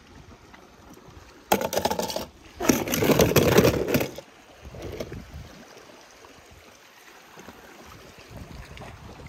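Two bursts of clattering and scraping, the second longer and louder: a clear plastic box holding die-cast toy cars being handled on rock. A faint wash of sea runs under it.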